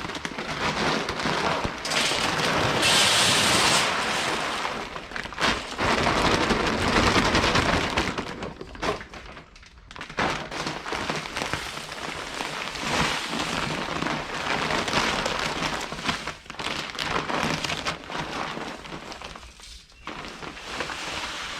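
Dry animal feed pouring from a 50-pound sack into an empty bin: a dense rain-like hiss and rattle that swells and eases as the sack is tipped.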